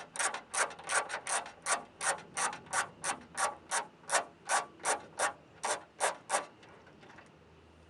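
A 1/4-inch ratchet with a deep 10mm socket clicking in quick, even back-and-forth strokes, about three a second, as it backs off one of the nuts holding the trunk lock. The ratcheting stops about six and a half seconds in.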